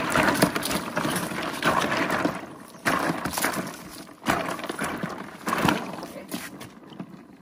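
Live catfish thrashing in a plastic cooler, wet slaps and knocks against the plastic in a burst about every second or so. The fish are lively.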